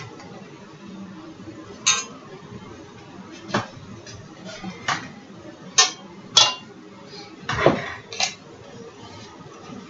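A cooking utensil clinking and knocking against a frying pan about seven times, with a longer scrape about three-quarters of the way through.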